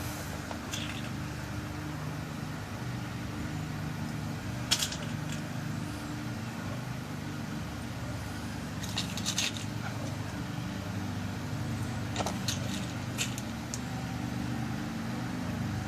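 Small lock pins being dropped into the pin chambers of a lock cylinder while it is loaded with a new key code: light, sparse clicks, one about five seconds in, a few together around nine seconds and more around twelve to thirteen seconds, over a steady low hum.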